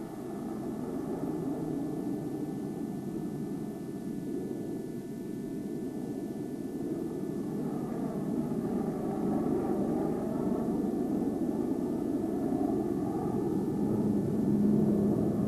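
Jet fighters flying overhead in formation: a steady rushing jet noise that grows gradually louder, with a faint wavering whine through the middle.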